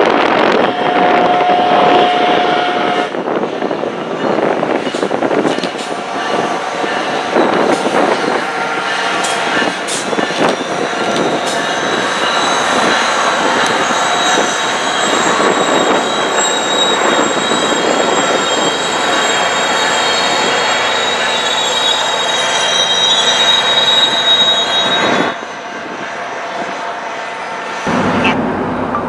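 SunRail commuter train running past, its wheels clicking over the rail joints and squealing in a thin high pitch through the middle and later part; the sound drops off suddenly near the end.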